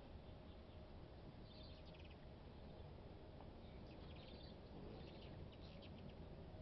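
Hummingbirds at a feeder chirping faintly in a few short clusters of high twitters, over a low steady background rumble.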